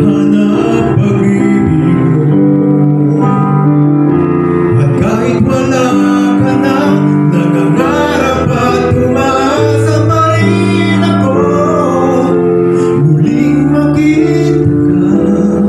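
A man singing into a microphone over steady instrumental accompaniment with held chords.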